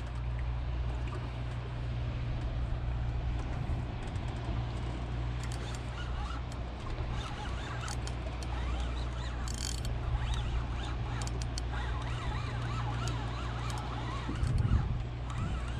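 Boat outboard motor running at idle with a steady low hum, over a wash of water noise, with a louder bump near the end.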